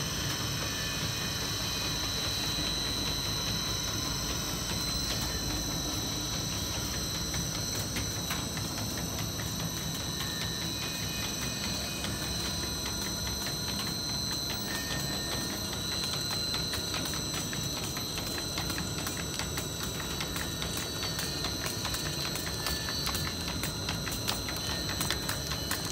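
Single-wall corrugated pipe production line running: a steady high whine over a low machine hum, with fast light clicking throughout that grows a little louder near the end.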